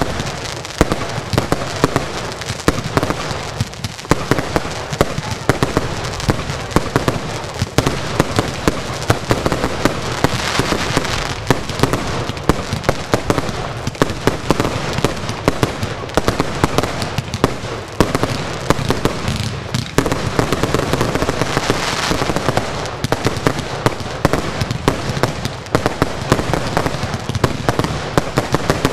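Fireworks finale: a continuous barrage of aerial bursts, many bangs overlapping in quick succession, with denser hissing stretches about ten and twenty-two seconds in.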